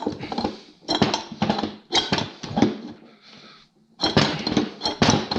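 Mallet striking a two-stroke snowmobile engine's crankcase and crankshaft to knock the crank out past its snap ring, in about five bursts of quick blows with metallic clinks.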